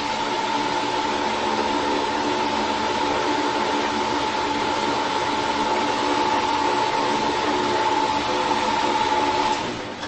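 Worn-out heat-pump fan motor with its fan blade running steadily, with a little high whine over the rush of the blade; its bearings are worn out, leaving side-to-side slack in the shaft. The sound dies away near the end.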